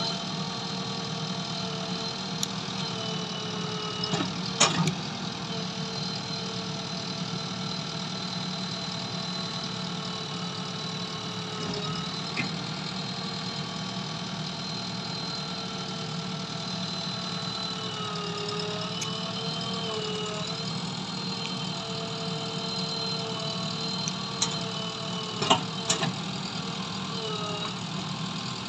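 JCB 3DX backhoe loader's diesel engine running steadily while the backhoe arm works, its note dipping and wavering for a couple of seconds under hydraulic load. A few sharp metallic clanks come about five seconds in and again near the end.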